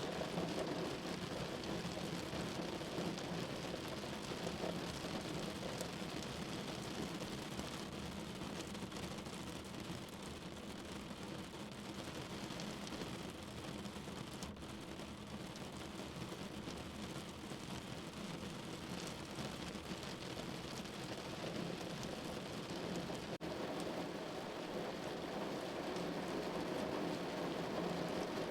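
Steady rain falling: a continuous hiss of rain with many small drop taps, a little softer in the middle.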